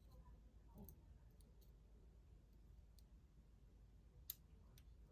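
Faint small metal clicks as pins and springs are fitted into a Master Lock 911 padlock's pin chambers, with one sharper click about four seconds in.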